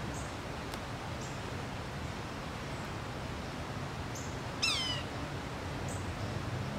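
Yellow-bellied sapsucker giving a single loud mewing call, a note that falls sharply in pitch, about four and a half seconds in, over a steady low rumble.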